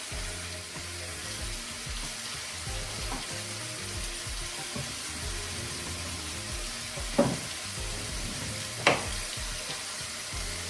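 Steady sizzling hiss of food cooking, with two sharp knocks about seven and nine seconds in, the second the louder.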